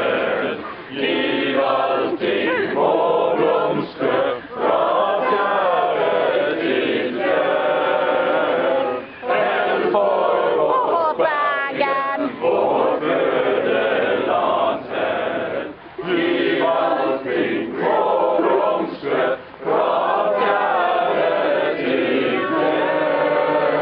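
A group of men and women singing a song together in chorus, phrase after phrase with short breaks between.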